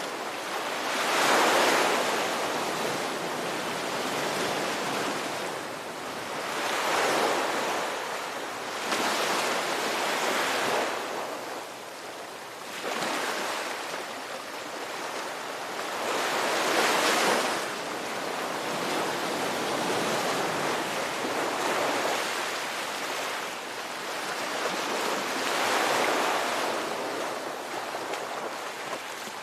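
Ocean surf: waves breaking and washing up the shore, a rushing sound that swells and falls back every few seconds.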